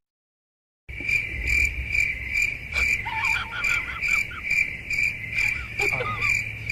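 Cricket chirping in a steady, even rhythm of about two to three high chirps a second, starting abruptly about a second in after a dead-silent gap.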